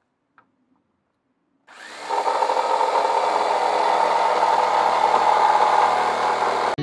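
Bosch jigsaw starting up nearly two seconds in and running steadily as it cuts into a pine tabletop, then cutting off suddenly near the end.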